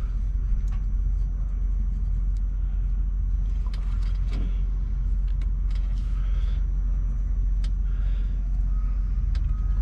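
Small metal clicks and taps of the brake caliper's pad retaining pins and hardware being handled and fitted, scattered irregularly over a steady low rumble.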